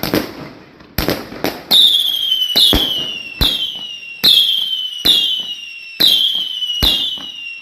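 Consumer fireworks cake firing: sharp bangs, then from about two seconds in shot after shot roughly once a second, each with a whistle that falls in pitch.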